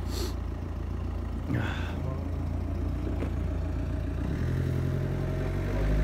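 An engine idling: a steady low hum, joined about four seconds in by a steadier low drone, with a brief clatter around the middle.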